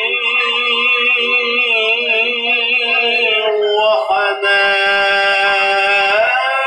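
Male singer performing classical Arabic song through a PA microphone, drawing out long ornamented notes with wide vibrato, with violin and keyboard accompaniment. A little before the end the voice slides up to a higher held note.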